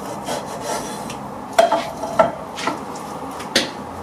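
Kitchen knife cutting raw pork on a wooden chopping board: several sharp knocks as the blade strikes the board, the loudest in the second half, with softer scraping and handling between them.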